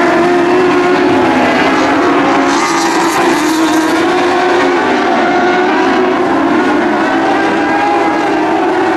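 Several race car engines running together on a dirt oval, a steady overlapping drone whose pitches waver up and down as the cars lap.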